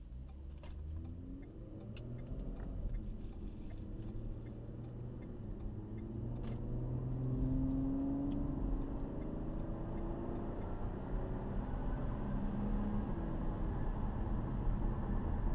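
Cabin sound of a 2012 Ford Fusion Sport with its exhaust resonator removed, accelerating: the 3.5-litre V6 and exhaust note climb in pitch and grow louder over a low road rumble.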